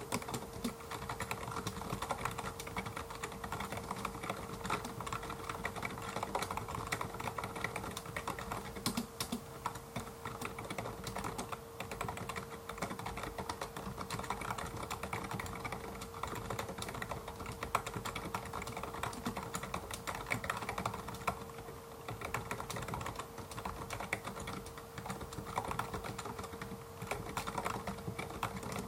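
Clicky-switch LG gaming keyboard being typed on in a steady, unbroken run of rapid key clicks.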